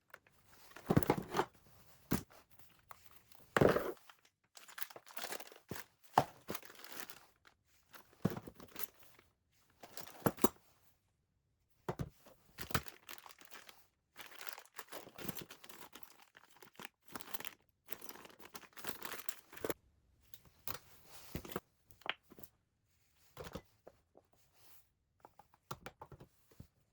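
Irregular rustling, crinkling and tearing of packaging as household items are handled and sorted, with scattered light knocks; the loudest handling comes about a second in and again near four seconds.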